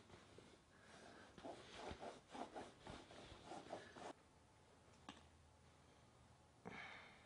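A shoelace sawing back and forth against plastic flex cuffs: faint, quick rubbing strokes that stop about four seconds in, followed by a single faint click.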